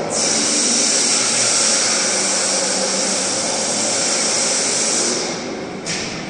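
A loud, steady rushing roar that starts abruptly and fades away after about five seconds.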